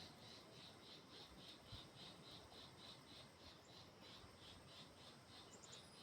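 Faint insect chirping, an even run of short high chirps at about five a second, over a soft background hiss.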